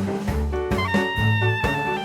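Background music: an upbeat jazzy instrumental, with a held lead melody over short, bouncing bass notes.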